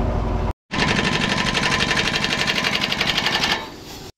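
Air-powered impact wrench hammering rapidly for about three seconds, then easing off near the end.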